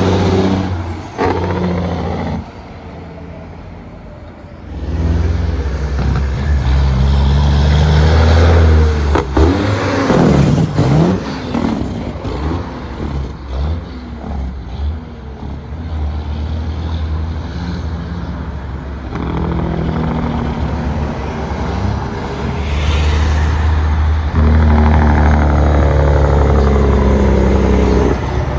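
Heavy diesel engines of semi trucks pulling past close by, one after another, with a deep, steady engine note that comes and goes as each rig passes. About ten seconds in, one truck sweeps by with a dip and rise in pitch.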